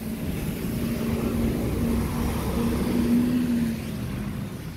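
Owner-type jeep's engine being cranked by its starter motor without catching: a steady whine over a chugging rumble for about three and a half seconds, then it stops. The family suspects the engine has run out of gasoline.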